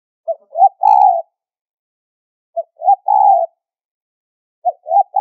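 Spotted dove cooing a high-pitched three-part call: two short notes and then a longer coo. The call repeats three times, about two seconds apart.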